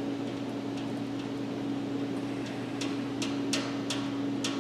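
Light clicks and ticks of wires and metal terminals being handled at an air compressor's pressure switch, several in quick succession in the second half, over a steady machine hum.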